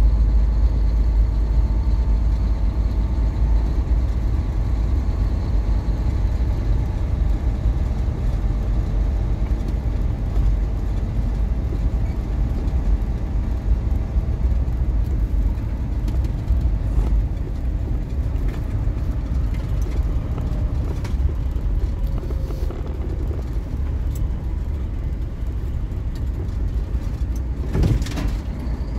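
Truck engine running and road noise heard inside the cab while driving slowly, a steady low rumble, with a short burst of noise near the end.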